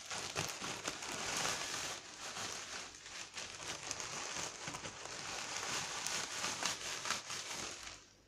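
A plastic bag crinkling and dry hay rustling as hay is tipped into a large plastic bag and mixed by hand. The sound is a steady run of small crackles that stops near the end.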